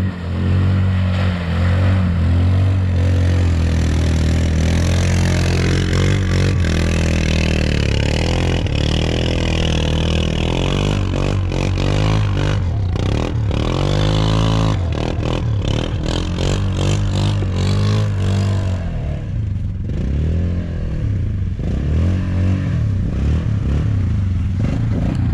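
Four-wheeler (ATV) engine revving as it drives through mud, its pitch rising and falling again and again, with a stretch of clattering and scraping in the middle. To the riders it sounded bad, as if the four-wheel drive had broken.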